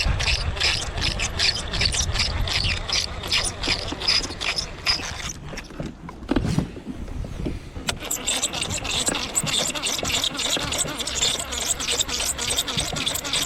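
Fishing reel squeaking and grinding with each turn of the handle, a fast even rhythm of about four squeaks a second, during a quick lure retrieve. It breaks off for about two seconds in the middle, with a low thump and a single click, then starts up again.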